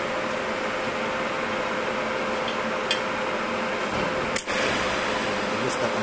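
Steady cooling-fan whir with a faint steady hum, from a Supertig 315EX inverter TIG welder that is switched on and idling. A light click comes about three seconds in, and a sharper click about four and a half seconds in.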